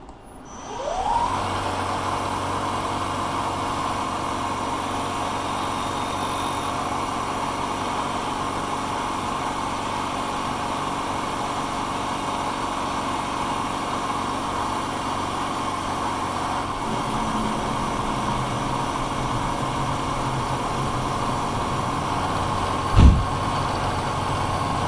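Vertical milling machine spindle starting up with a rising whine in the first second, then running steadily while the end mill takes a finishing cut on a brass hand wheel. A single sharp knock about 23 seconds in is the loudest moment.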